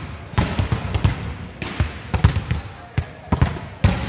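Volleyballs being bounced and struck on a wooden sports-hall floor: an irregular run of sharp thumps, a few per second.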